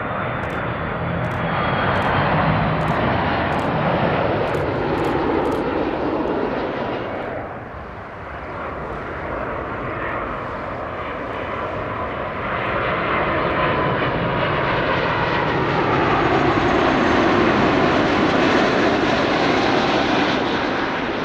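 Jet engines of two Airbus A330 airliners on landing approach passing low overhead, one after the other. The first fades and cuts off about seven and a half seconds in; the second builds to its loudest near the end, with whines that slide in pitch as it passes.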